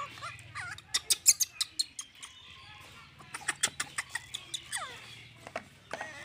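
Small milk carton and plastic feeding bottle being handled and squeezed: quick runs of sharp clicks and crackles, loudest a little after one second in and again a couple of seconds later. A few short high squeaks that slide down in pitch come between them.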